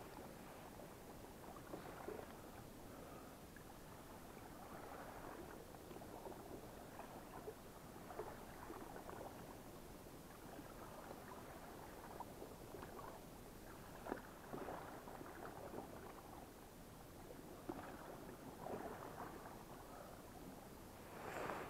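Faint small waves lapping and gurgling against the rocks of the shoreline, in soft uneven swells with a few small clicks and splashes.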